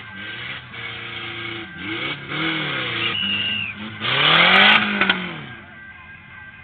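Kart cross buggy engines revving in short throttle blips while standing still, each rev rising and falling in pitch; the biggest, loudest rev comes about four seconds in, after which the engines settle back to idle.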